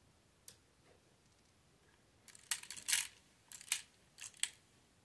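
Plastic Lego parts of a toy flintlock pistol clicking and rattling as they are worked by hand. There is one sharp click about half a second in, then three short bunches of clicks in the second half, the loudest just before the middle of that run.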